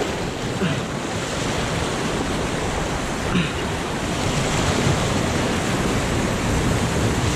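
Ocean surf washing over a rocky shore: a steady rush of water.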